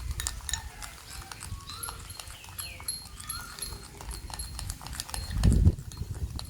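Kitchen utensils clicking and tapping irregularly against a bowl or cup while the coffee is prepared, with a louder low thump about five and a half seconds in.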